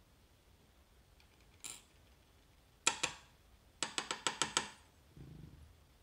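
Small metal lock pins and springs from a gutted Assa Twin V-10 cylinder dropping onto a metal pin tray. First a single click, then two sharp clicks, then a quick run of about eight clicks, followed by a soft low rub near the end.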